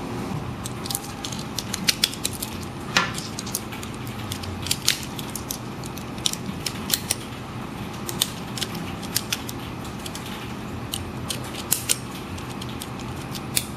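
Small metal airsoft cartridge shells clicking and tapping as they are handled and pushed into a Marushin Glock 21 magazine: irregular sharp clicks, with a short scrape about three seconds in. A steady low hum runs underneath.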